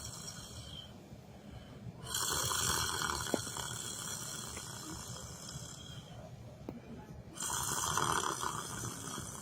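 A person snoring in their sleep. A snore trails off at the start, then two long snores follow about five seconds apart, each starting suddenly and fading away.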